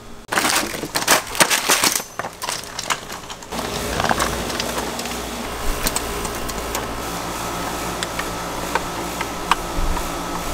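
Loaded Gorilla hose reel cart clattering and clicking as it is wheeled along, with dense rattling for about three seconds. It then gives way to a steady hum with occasional sharp clicks.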